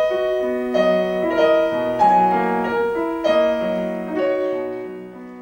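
Piano playing a slow passage of held chords, a new chord struck roughly every second and left to ring, the sound fading toward the end.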